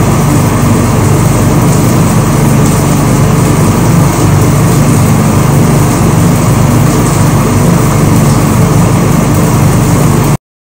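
Steady, loud vehicle engine and road roar, even throughout, that cuts off abruptly just before the end.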